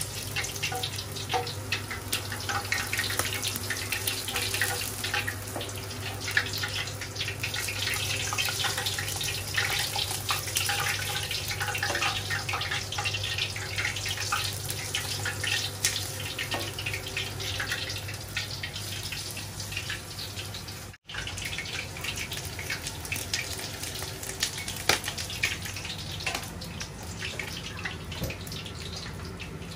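Hot oil sizzling and crackling around a pork leg deep-frying in an aluminium wok, with dense sharp pops and hot oil ladled over the meat. A steady low hum runs underneath, and the sound drops out for an instant about two-thirds of the way through.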